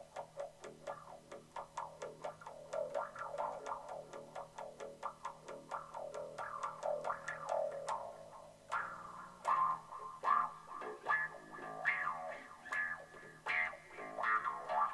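Electric bass guitar played by plucking: a steady run of short notes, then from about nine seconds in slower, louder notes left to ring.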